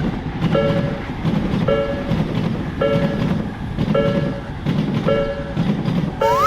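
Railroad crossing warning signal sounding a short tone about once a second, with a rising whistle-like sweep near the end, over the low rumble of a train.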